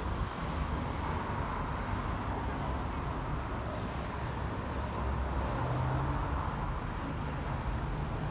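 Road traffic on a city street: a steady noise of cars passing by.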